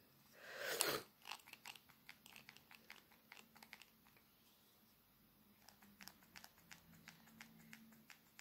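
Faint, irregular small clicks and crackles of fingers handling the cap of a small plastic eye cream container, with a short louder rustle just under a second in.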